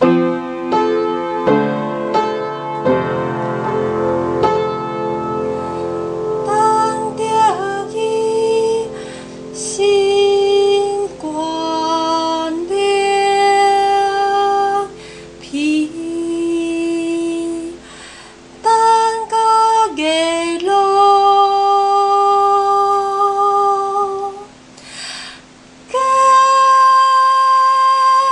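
A woman singing a slow art song with piano accompaniment. Piano chords fill the first few seconds, then the voice carries long held notes that glide from one pitch to the next.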